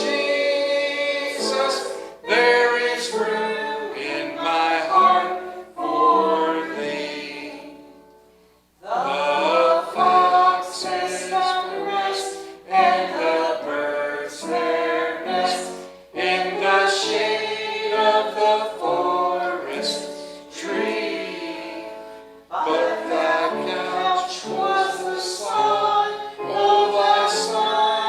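Church congregation singing a hymn together, phrase by phrase, with a short breath between lines about eight seconds in.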